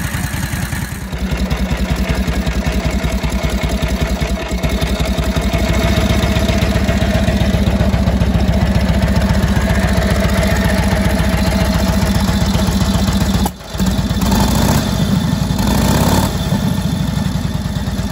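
Harley-Davidson WLA's 45 cubic inch flathead 45-degree V-twin running with an even, rapid pulse, with a short break about three-quarters through followed by a couple of louder bursts.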